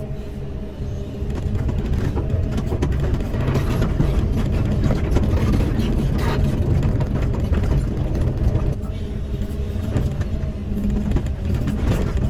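Caterpillar 320E excavator's diesel engine running steadily under digging load, heard from the cab, with the bucket scraping and clattering through soil.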